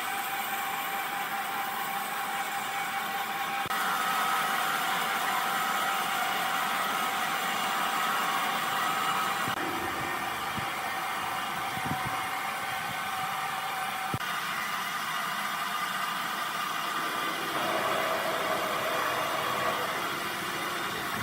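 Woodworking machinery running steadily, a motor-driven hum with a few faint knocks. The sound changes suddenly about four times.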